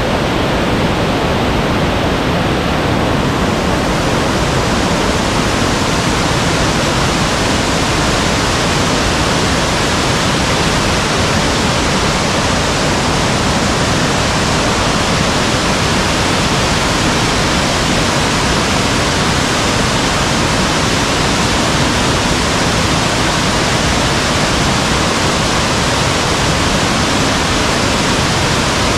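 Heavy rain and rushing water making a loud, steady rush with no breaks.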